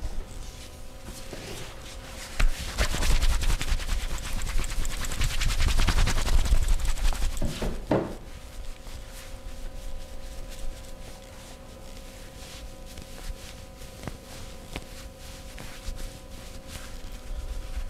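Hands rapidly tapping and slapping on a body in a percussive massage. The fast strokes are loudest for about five seconds starting a couple of seconds in, with lighter, sparser taps before and after.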